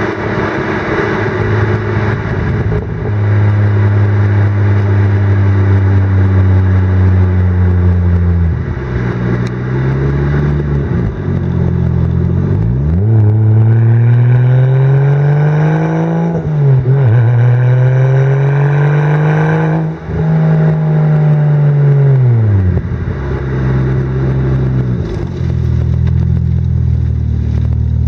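BMW 335i's turbocharged inline-six, converted to a single turbo, running through a VRSF exhaust. It holds a steady drone, drops in revs, then climbs in two pulls with a short dip between them. Around the top it is let off at about 10 psi of boost and the revs fall away before settling back to a steady drone.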